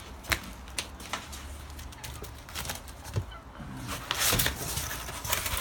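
Cardboard cartons and plastic wrapping being handled: scattered clicks and knocks, with wind rumbling low on the microphone.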